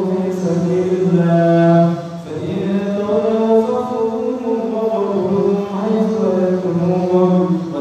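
A man reciting the Qur'an in Arabic in a melodic, chanted style into a microphone. He holds long, drawn-out notes, with a brief pause for breath about two seconds in.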